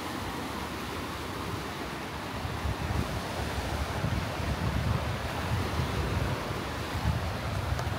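Small waves breaking and washing over a rocky shore, with wind gusting across the microphone and rumbling more strongly from about two and a half seconds in.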